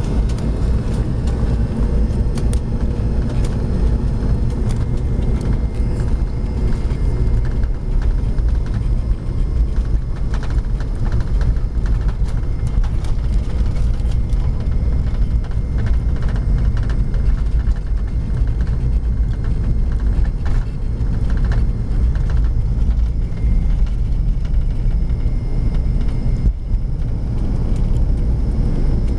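Aircraft cabin noise heard from a window seat: a steady, low rumble of engines and airflow.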